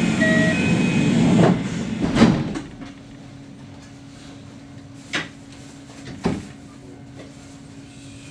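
The doors of a Kintetsu electric commuter train closing: a two-note door chime at the very start, a rush of sliding-door noise ending in a thud about two seconds in. After that a low steady hum from the standing train, broken by two sharp clicks.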